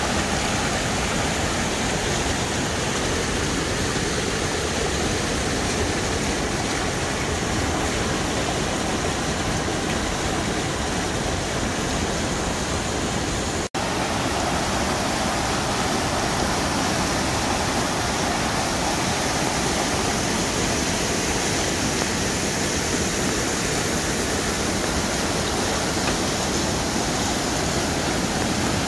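Steady rushing of a fast creek's whitewater cascading down a rocky bed, with an instant's dropout near the middle.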